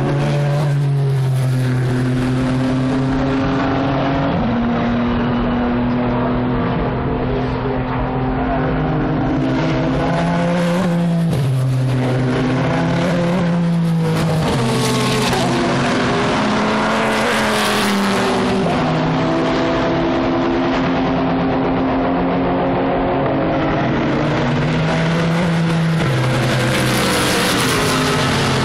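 Several endurance race cars' engines at racing speed, revving up and down through gearshifts as cars pass one after another. Each near pass swells and fades, and it happens about five times.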